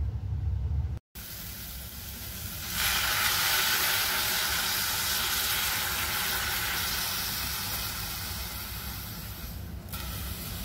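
Steady hissing from a steel pot of pumpkin pieces cooking on a gas stove. The hiss grows louder about three seconds in and eases near the end.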